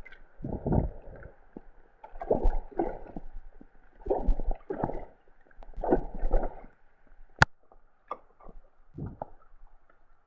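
Roadside storm drain gurgling and slurping in irregular gulps as a flooded road's puddle drains into the unblocked gully, with a sharp click about seven seconds in.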